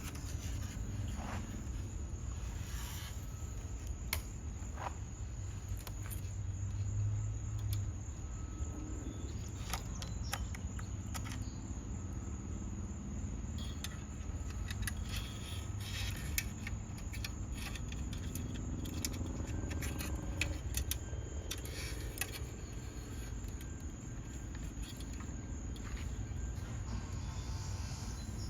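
Small clicks and light rattles at irregular intervals as a window regulator's cables and plastic parts are handled and worked loose, over a steady low hum and faint background crickets.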